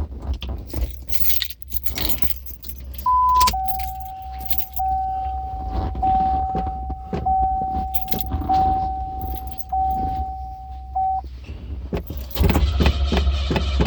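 Keys jangling, then a Cadillac's dashboard warning chime sounding as one steady tone for about eight seconds. Near the end the starter begins cranking the engine in a fast, even rhythm, the start of a hard morning start on a flooded engine.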